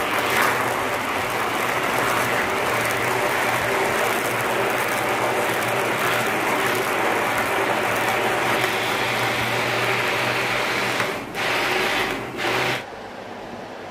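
Electric hand (immersion) blender running in a plastic jug, its blade chopping carrot pieces in water into a pulp. It stops briefly about eleven seconds in, runs again for about a second and a half, then switches off near the end.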